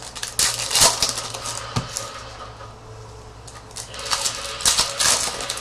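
Trading card pack and cards being handled by hand: crackling wrapper and flicking, clicking cards in two bursts, one about half a second in and one past four seconds.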